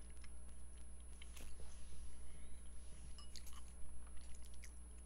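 A person chewing a mouthful of food, with scattered light clicks and a sharper tick about a second and a half in, over a steady low hum.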